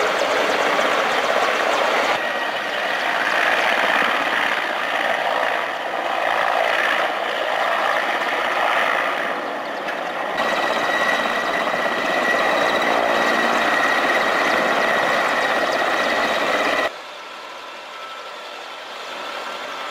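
Military transport helicopter's turbine engines and rotor running close by: a steady loud rushing with a high turbine whine over it. The sound changes abruptly a few times, and about seventeen seconds in it drops sharply to a much quieter level.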